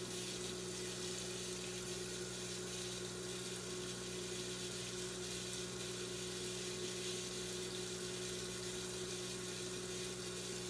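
Steady background hiss with a low electrical hum and no distinct sounds: room tone.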